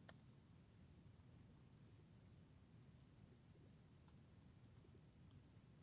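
Faint, scattered clicks of computer keyboard keys being typed, over near-silent room tone.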